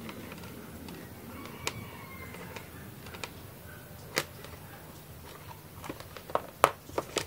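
Small plastic clicks and taps from an SG90 micro servo's plastic case and parts being handled and taken apart, a few scattered at first, then a quick run of sharper clicks near the end.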